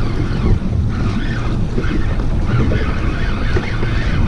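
Wind buffeting the microphone over water rushing and splashing alongside a moving boat, with the steady low hum of its outboard motor underneath.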